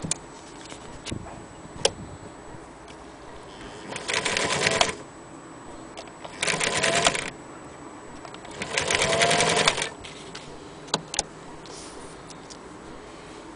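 Singer 306K electric sewing machine run in three short bursts, each about a second long, stitching through a thick strip of leather: a rapid run of needle strokes with a motor whine that rises as each burst starts. A few sharp clicks come between the bursts.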